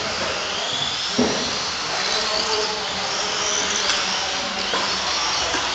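Several electric Tamiya TT-01 radio-controlled touring cars racing: a high-pitched whine of their motors and drivetrains rising and falling in pitch as they accelerate and slow. A sharp knock about a second in, with a couple of lighter ones later.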